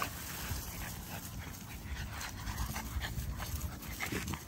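A litter of French bulldog puppies wrestling and scuffling together on grass, with a short high puppy cry about four seconds in.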